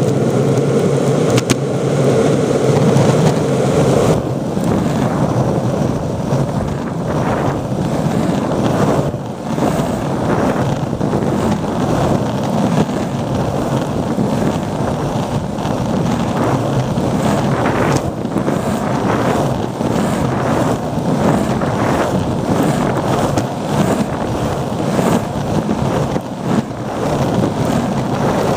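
Longboard wheels rolling over asphalt, a steady rumble close to the wheels, with wind buffeting the microphone and occasional sharp knocks from bumps in the surface.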